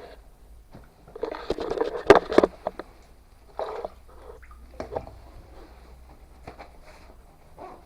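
A person moving about on foot: irregular scuffs and knocks, with a louder stretch of scraping and rustling about a second in.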